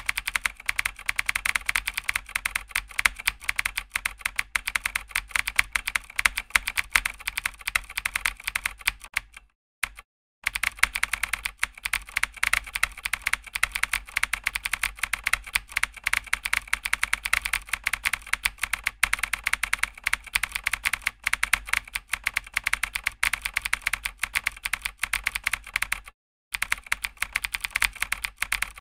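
Rapid keyboard typing clicks: the typing sound effect that runs with text appearing letter by letter on screen. It breaks off briefly twice, about ten seconds in and near the end.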